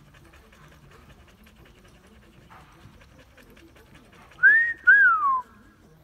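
A person's loud two-part wolf whistle near the end: a rising note held briefly, then a note that rises and falls away.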